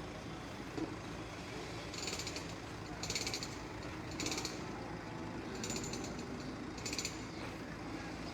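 Case 770 EX backhoe loader's diesel engine running steadily under work, with short high-pitched bursts repeating about once a second.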